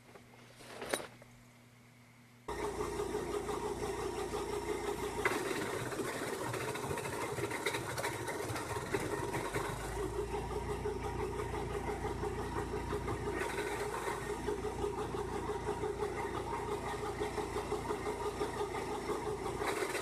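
An engine running steadily at a constant speed. It cuts in abruptly about two and a half seconds in, after a quiet start with a single click.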